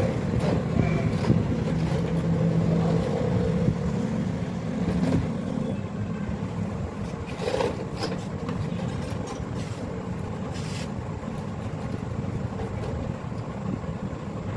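Steady low rumble of an engine running nearby, with a pitched hum over the first few seconds that then eases off. A few sharp clicks come through in the middle.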